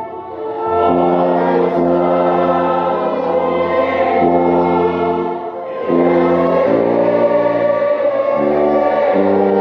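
A slow hymn played by a tuba close at hand, its deep bass notes under voices singing and other instruments. Long held chords change every second or two, with a short dip in the sound just after the start and again about six seconds in.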